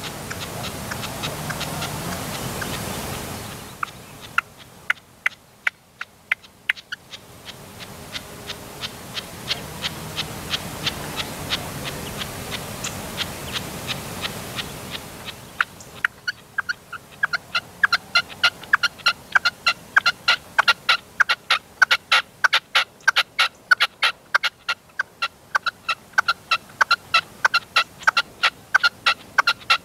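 Caged decoy red-legged partridge calling: a long run of short, sharp repeated notes, several a second, sparse at first and then coming thick and regular through the second half. A steady rushing noise lies under the calls for much of the first half.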